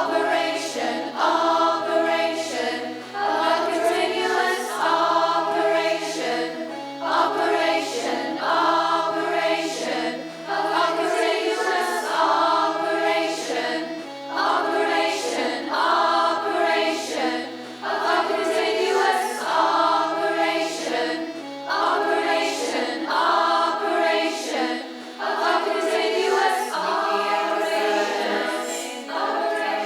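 A choir of voices singing a repeating phrase over held low bass notes that step between a few pitches about every two seconds.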